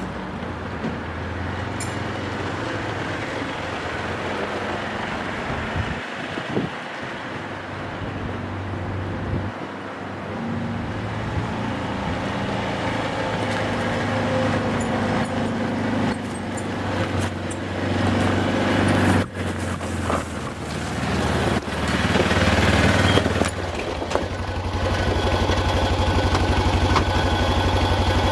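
Side-by-side utility vehicle engine running while being driven, with a few knocks and rattles, settling into a steady even running note for the last few seconds.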